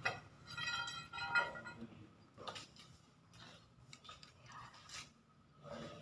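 Light clicks and clinks of small paint tubes and a plastic paint palette being handled on a tiled floor, a few separate taps. In the first second and a half a brief high-pitched warbling sound is the loudest thing.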